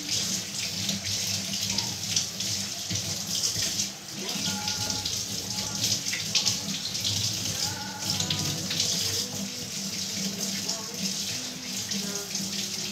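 Tap water running into a stainless steel sink and splashing over dishes as they are washed by hand, a steady rushing that varies as the flow is interrupted.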